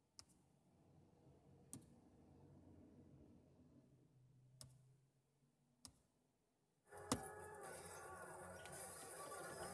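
Four short, faint clicks as the car's touchscreen head unit is tapped, then about seven seconds in the film's soundtrack starts playing suddenly through the car speakers, noticeably louder than the taps.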